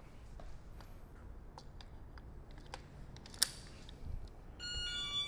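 Scattered light clicks and handling taps, with one sharper click about three and a half seconds in. Near the end an electronic chime starts, a repeating pattern of steady tones, signalling that someone has come in.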